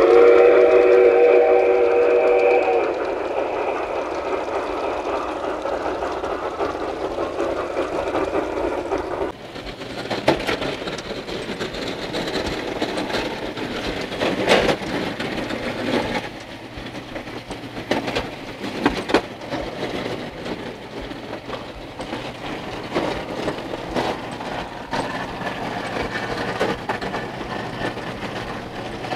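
A model steam train's whistle sounds a held chord for about three seconds over the steady running noise of the train on its track. About nine seconds in, this gives way to a quieter background with scattered clicks.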